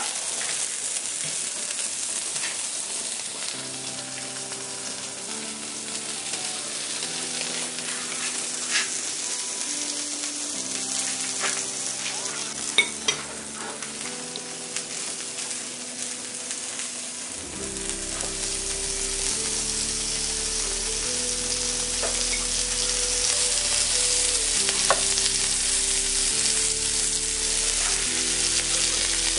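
Food sizzling steadily as it fries, with a few sharp clinks now and then. Soft background music plays under it, and a bass line comes in a little past halfway.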